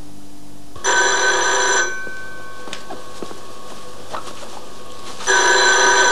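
Rotary-dial desk telephone ringing twice. Each ring lasts about a second, and the rings come some four and a half seconds apart, the signal of an incoming call.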